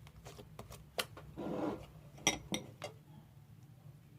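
Homemade fluffy slime being handled: a few sharp clicks and clinks, with a short squishing rub about a second and a half in.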